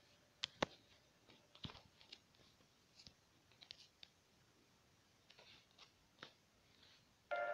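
Near silence with faint, irregular clicks and taps scattered through it; music starts suddenly near the end.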